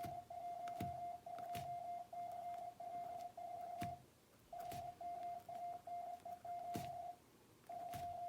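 Computer-generated Morse code at 25 words per minute from the koch_trainer program: a single mid-pitched beep keyed on and off in dots and dashes, with a short pause between words about four seconds in and again about seven seconds in. A few soft knocks sound along with it.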